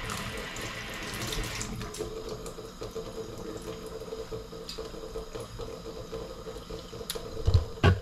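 Kitchen tap water running for a couple of seconds, then a steady lower hum. Two knocks come near the end.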